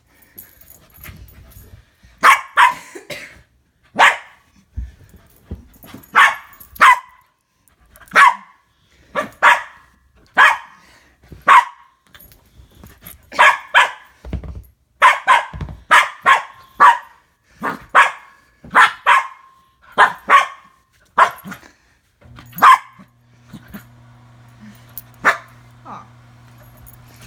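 Young bernedoodle barking excitedly in play: short sharp barks, many in quick pairs, about one a second. Near the end the barks thin out and a steady low hum comes in.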